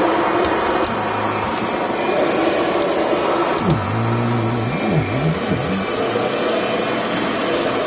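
2011 Kirby Sentria upright vacuum cleaner running steadily with a loud motor-and-fan whoosh, just after being switched on; about halfway through, its low pitch wavers up and down for a couple of seconds.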